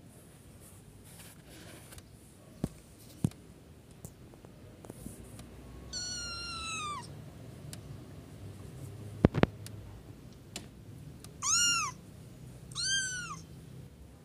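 Kitten mewing three times in high-pitched calls: one falling call about six seconds in, then two short arched calls near the end. A few sharp clicks are heard as well, the loudest a double click about nine seconds in.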